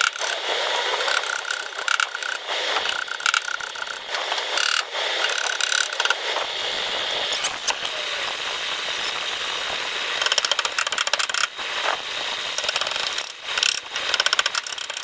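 Dent-repair tools working a car's rear fender panel to flatten a dent without harming the paint: runs of quick metallic clicks over a steady hiss, thickest about two thirds of the way through and again near the end.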